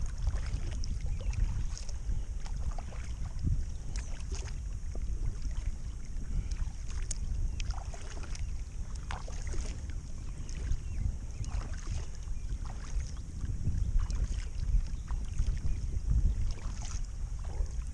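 Kayak paddle strokes dipping and splashing in the water, with wind rumbling on the microphone.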